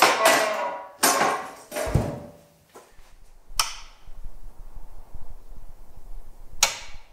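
Skutt electric kiln lid swung down and closed: clattering knocks, then a deep thud at about two seconds as it seats on the rim. Then, with the kiln firing, a steady low hum and two sharp clicks about three seconds apart.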